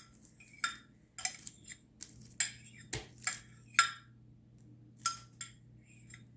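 A utensil clinking against a hard dish about ten times at irregular intervals, each hit a sharp click with a brief high ring.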